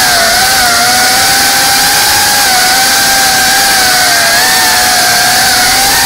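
GEPRC Cinelog 35 cinewhoop FPV drone's motors and propellers whining loudly in flight, the pitch rising and falling a little with the throttle.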